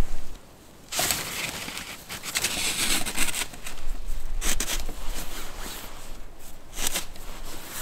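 Rustling and scraping of a nylon tarp and puffy jacket as a stick tarp pole is handled in snow, with scattered small clicks and knocks. After a brief lull near the start, the rustling runs unevenly and grows louder and softer in spells.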